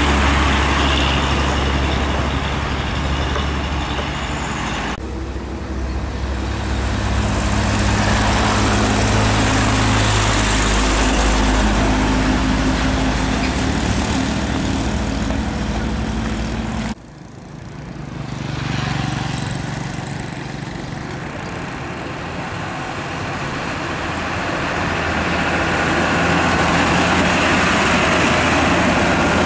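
Heavy diesel trucks passing on a highway: steady engine running under load with tyre and road noise. The sound changes abruptly twice, about 5 and 17 seconds in, the second time dropping briefly before building again as the next truck nears.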